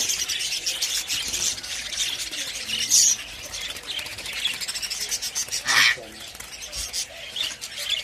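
A flock of caged budgerigars chattering continuously in high, busy warbles and chirps. Louder squawks stand out about three seconds and about six seconds in.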